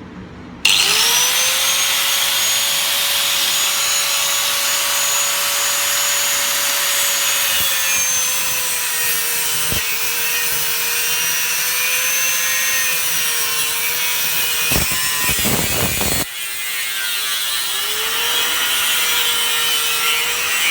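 Angle grinder cutting into a smartphone: a steady motor whine over the rasping hiss of the disc grinding through the phone, starting abruptly about a second in. Near the end the sound breaks off for a moment, then the whine sags and picks back up as the disc bites again.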